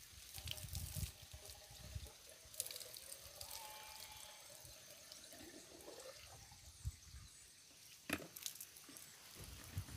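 Faint water trickling and dripping from the end of a water-filled blue suction hose as it is handled, with a sharp click about eight seconds in.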